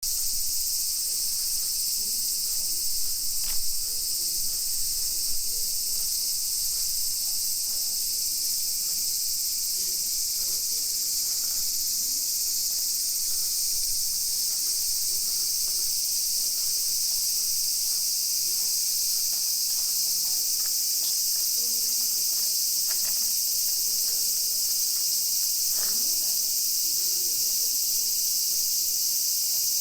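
A dense, steady, high-pitched chorus of insects trilling without a break, with a few faint clicks.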